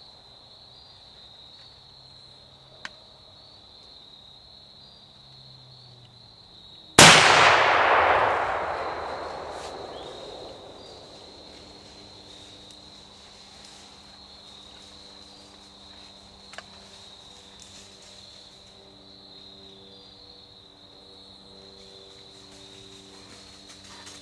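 A single muzzleloader shot about seven seconds in, sudden and very loud, its report echoing away over several seconds through the woods. Crickets chirp steadily throughout.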